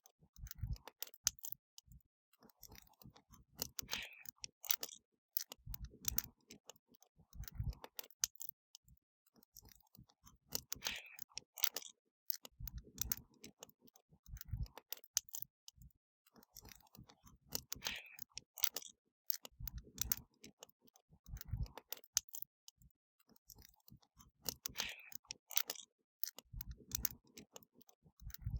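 Wood fire crackling, with a steady stream of sharp pops and snaps over low rumbling swells. The same pattern of swells and bright pops repeats about every seven seconds.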